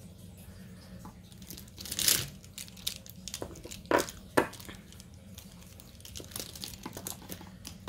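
Plastic fineliner pens being handled and knocked together: a rustle about two seconds in, two sharp clicks of the plastic barrels or caps about four seconds in, then lighter rattling near the end.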